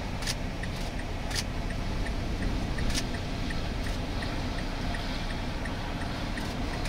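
Steady low rumble and hiss inside a vehicle, with a few sharp taps of raindrops striking the windshield.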